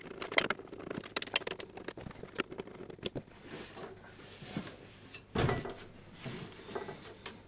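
Handling of a steel PC case, the Cooler Master H500M, while its mounting plate is being removed: scattered light clicks and taps of metal parts, with one duller, louder knock about five and a half seconds in.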